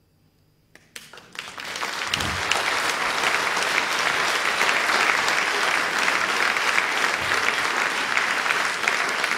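Audience applauding: a brief hush, then clapping that starts about a second in, swells over the next second or so and holds steady.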